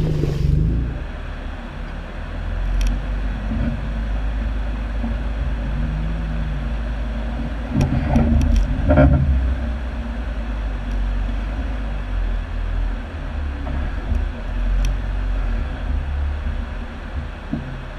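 Jeep Wrangler Unlimited's engine running under load as it climbs a snowy, muddy hill, with a short rise and fall in revs about six seconds in and a louder stretch about eight seconds in.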